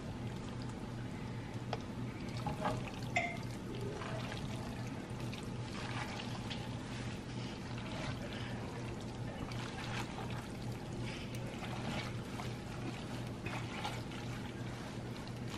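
Thick Alfredo sauce pouring from a pan onto cooked fettuccine while a pasta server tosses the noodles: wet stirring sounds with scattered light clicks of the utensil against the pot. A steady low hum runs underneath.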